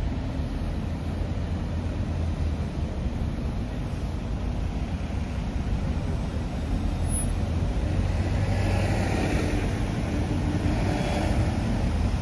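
Road traffic noise from a queue of cars, vans and lorries crawling beside the footway: a steady low rumble of engines and tyres that grows a little louder in the second half.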